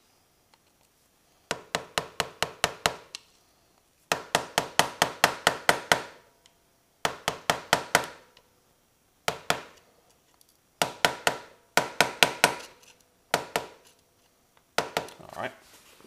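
Rubber mallet tapping a flathead screwdriver against a tab washer to bend its locking tab flat under a motorcycle's front sprocket nut. The taps come in quick runs of about five or six a second, with short pauses between runs.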